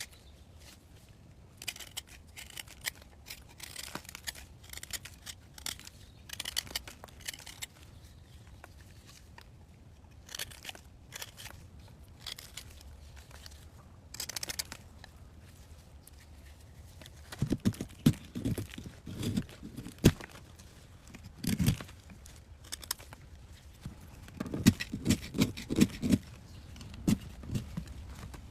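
Crisp snips, crackles and tearing sounds of material being handled, followed in the second half by bunches of dull, low thuds that are the loudest sounds.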